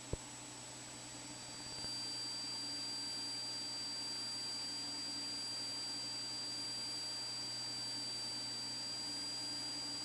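Cessna T206's engine and propeller at climb power just after takeoff, a faint, steady drone heard under a hiss with thin high whine tones. A single click right at the start, and the level steps up slightly about two seconds in.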